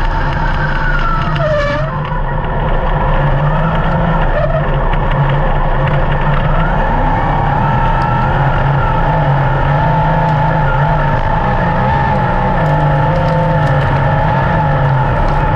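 Dirt-track race car engines running at speed, a loud steady drone whose pitch wavers up and down as the cars circle the track.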